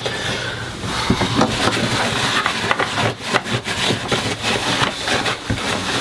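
Rubbing and handling noises, with many small clicks and knocks, from hands working at the plastic flush control panel of a Thetford C250 caravan toilet while it is being cleaned.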